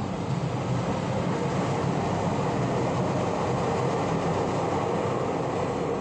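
Electric train passing by, a steady rolling noise.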